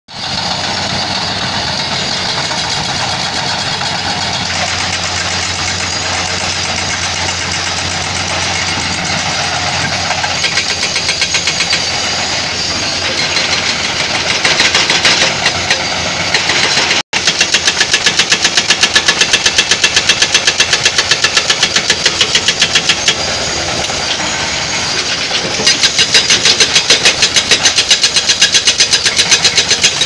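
Diesel engines of heavy earthmoving machines running steadily. After a brief break about halfway, a fast, even clatter from a Komatsu D85E-SS crawler bulldozer working close by takes over and is the loudest sound.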